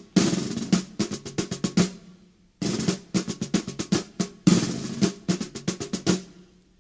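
Marching snare drum playing rolls and rapid cadence strokes in three phrases, with brief breaks about two seconds in and near the end: a fife-and-drum style lead-in.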